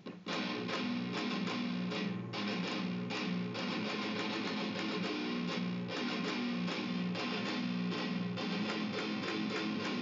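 Distorted electric guitar playing a heavy metal breakdown riff: low palm-muted chugs with sharp, rhythmic attacks, ringing out and stopping just after the end.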